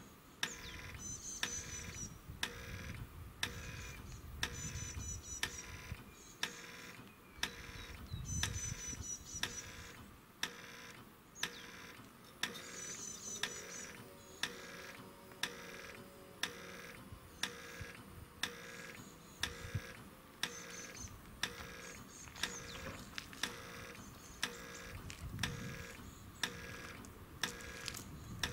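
Level crossing warning bell striking about once a second, each strike ringing briefly, as the crossing is activated for an approaching train.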